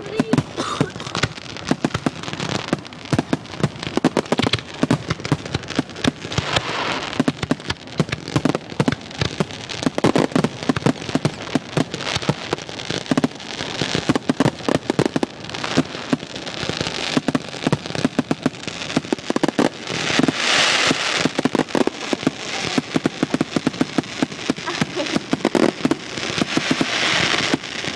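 Fireworks finale: many shells bursting in rapid, overlapping succession, a continuous barrage of sharp bangs and crackles. The crackle thickens about two-thirds of the way through and again near the end.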